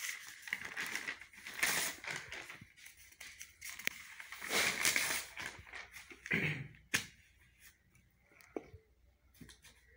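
Paper sheets rustling and crinkling as they are handled, in several short bursts, with one sharp tap about seven seconds in.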